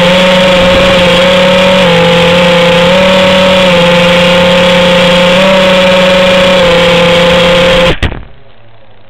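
FPV quadcopter's brushless motors spinning at idle while the quad sits armed, a steady whining hum that steps slightly up and down in pitch. The hum cuts off suddenly about eight seconds in as the quad is disarmed.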